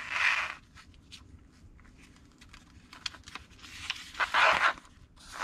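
Paper pages of an instruction booklet being handled and turned: a swish of a page at the start and a louder page turn about four seconds in, with faint paper rustles and taps between.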